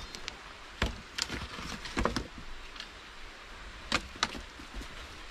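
Irregular knocks and snaps of dry sticks and brush being handled and set in place, a handful of separate hits over a steady outdoor hiss.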